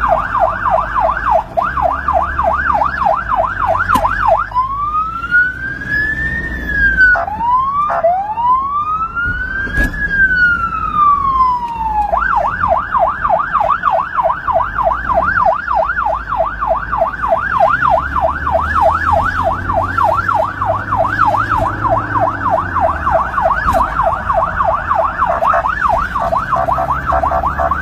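Ambulance electronic siren sounding a fast yelp, about four sweeps a second. About four seconds in it changes to two slow rising-and-falling wails, then returns to the fast yelp, with the vehicle's rumble underneath. It is the signal for traffic to make way for an ambulance on an emergency run.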